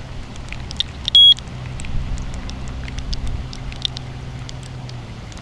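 Radiation Alert Inspector Geiger counter clicking at irregular intervals as it detects radiation, each click a counted particle, over a steady low hum. A single short high beep sounds about a second in, the loudest sound here.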